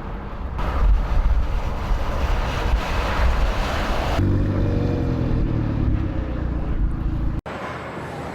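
Ford Super Duty pickup truck driving on a test course: wind and road noise with a deep rumble, then from about four seconds in a steady engine note. The sound cuts off abruptly near the end.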